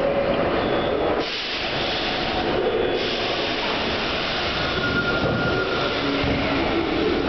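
New York City Subway R62 train on the 3 line, standing at a station platform and starting to pull out. The steady machine noise of the train carries a hiss that comes up about a second in, a few short tones, and a low tone starting near the end.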